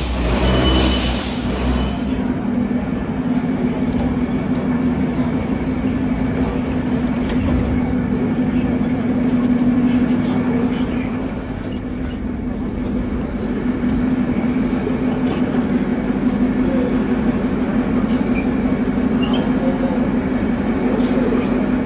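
A standing 81-717/714 metro train with a steady low hum, after a louder, noisier stretch in the first couple of seconds.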